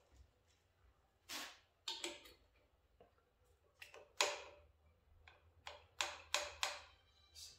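A motorcycle bar-end mirror being turned by hand on the handlebar end to check where it binds against the grip's rubber: a scattered run of about ten short clicks, taps and brief scrapes, the loudest a little past four seconds in.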